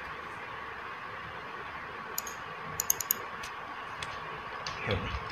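Computer keyboard keys clicking: a single keystroke about two seconds in, then a quick run of four or five about three seconds in, over a steady faint hum.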